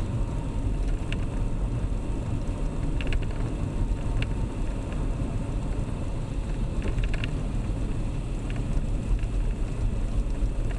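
Steady low road and engine rumble inside a moving car's cabin, with a few faint ticks scattered through it.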